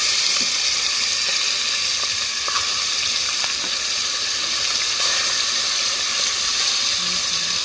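Seasoned chicken pieces frying in hot cooking oil in a pot, a steady sizzle as more pieces are dropped in to brown.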